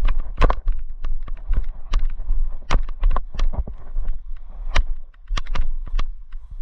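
Footsteps and rattling gear of an airsoft player on the move: irregular sharp clicks and knocks, a few louder than the rest, over a steady low rumble.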